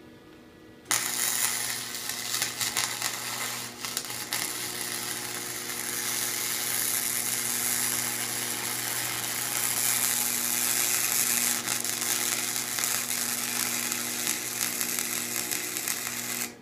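Electric arc welder laying one continuous weld bead on a steel billet: a steady crackling sizzle over the welder's electrical hum, starting sharply about a second in and cutting off abruptly near the end.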